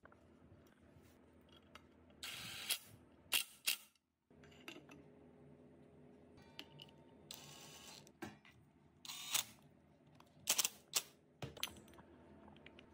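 Small aluminium Honda Super Cub C50 engine parts being handled and fitted by gloved hands: scattered clicks and light knocks, with a couple of longer scraping rubs, over a faint steady hum.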